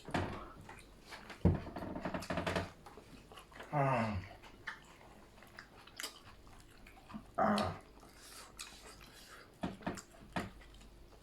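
Eating noises: chewing and sharp clicks of biting, with a few short wordless vocal sounds that fall in pitch, about three in all.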